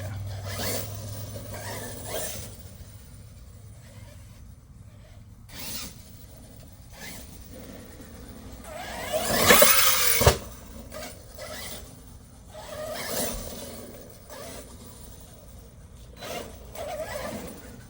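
Electric RC car on a 4S battery driving in bursts over rough ground, its motor whining up and down as the throttle is worked, with the loudest rev about halfway through. Its metal gears clink as it runs.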